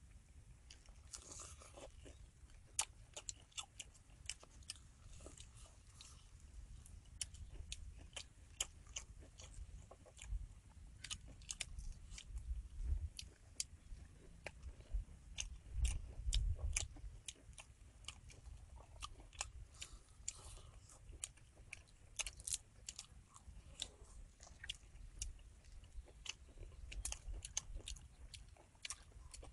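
Crunching and chewing of crispy egg-battered fried shrimp, many short crisp crunches scattered irregularly. A low rumble underneath comes and goes and is strongest about halfway through.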